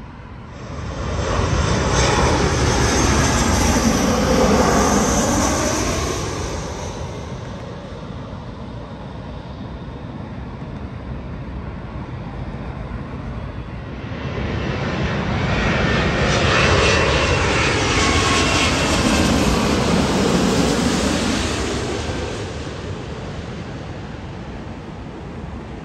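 Jet airliners passing overhead, two passes: each time the engine noise swells up loud, its pitch falls as the plane goes by, then it fades back to a rumble.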